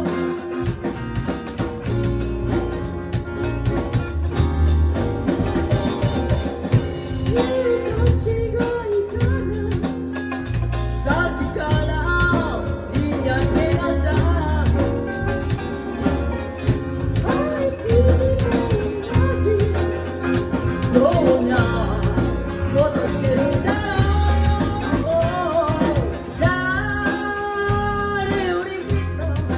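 A band playing a song live, with a singer's voice over a steady drum beat and guitar.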